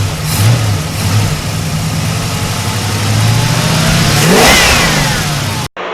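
A motor vehicle engine running loudly, its pitch climbing to a peak about four and a half seconds in and then falling away, as in a rev or a close pass-by. The sound cuts off abruptly near the end.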